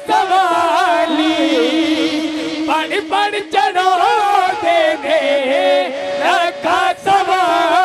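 Devotional naat singing: a male voice sings a drawn-out melodic line with wavering pitch, over a steady held note underneath.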